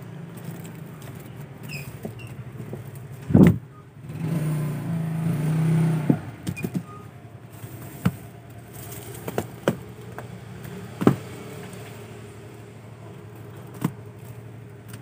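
Plastic-wrapped cigarette cartons and packs being handled and shifted, giving a loud thump about three and a half seconds in and several sharp knocks and clicks later on, over a steady low hum. A louder low drone with a steady pitch runs from about four to six seconds in.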